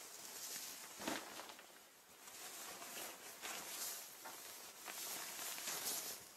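Rustling and crinkling of shiny synthetic clothing material, coming in irregular swells, with a sharper, louder crinkle about a second in.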